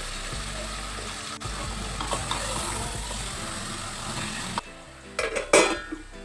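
Mutton sizzling on high flame in an aluminium pressure cooker, stirred with a ladle, with onions frying in a pan beside it. About four and a half seconds in, the sizzle cuts off abruptly and a few sharp metal clanks follow as the aluminium lid is set on the cooker.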